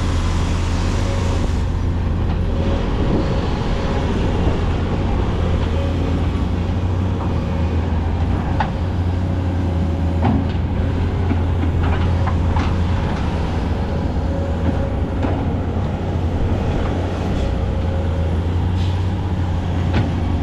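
A heavy diesel engine running steadily with a low, even drone and a few faint clicks and knocks.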